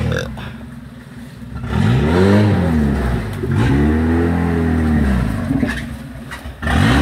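Old Jeep's engine working under load on a muddy rutted off-road climb. It revs up and back down in two surges, the second longer, with lower running between and another rev starting near the end.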